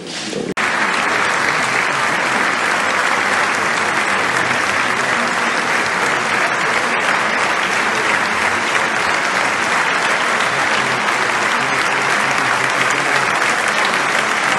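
Large audience applauding steadily with dense, continuous clapping, cutting in abruptly about half a second in.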